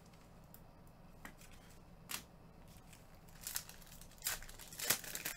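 Trading cards and their packs being handled, in a few short scraping rustles that come closer together and louder in the last two seconds.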